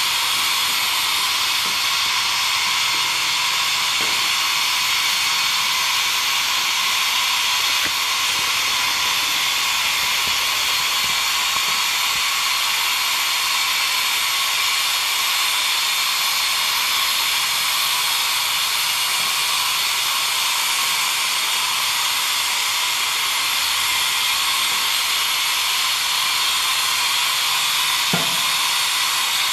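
Steady hiss of steam escaping from a Rogers-built steam locomotive standing under steam, with one soft knock near the end.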